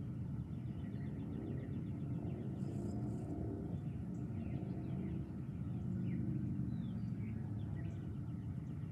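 Birds chirping and calling over a steady low rumble.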